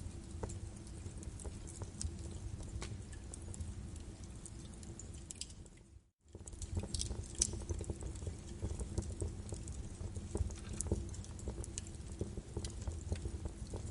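Birch logs burning in a fireplace, crackling with many small irregular pops over a low steady rumble of the fire. The sound fades out briefly about six seconds in and comes straight back.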